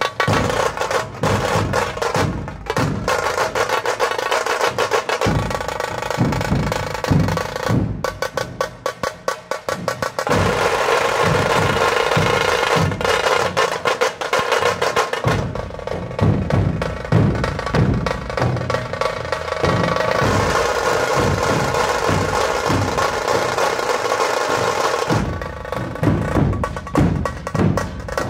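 Tasha drum struck with thin sticks in fast strokes and rolls, with deep dhol beats under it from a few seconds in. From about ten seconds in the tasha holds a continuous roll over steady dhol beats. Near the end the roll breaks up into separate strokes.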